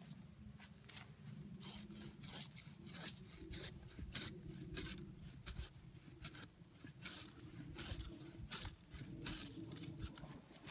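Hand saw cutting through the trunk of a small conifer Christmas tree: a steady run of rasping back-and-forth strokes, about two to three a second.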